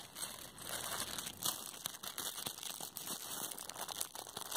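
Thin plastic shopping bag and food packets rustling and crinkling as hands rummage through them, a dense run of short crackles.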